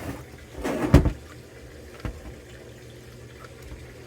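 Objects being handled: a short rustle that ends in a loud thump about a second in, then a light knock and a click, over a steady low hum.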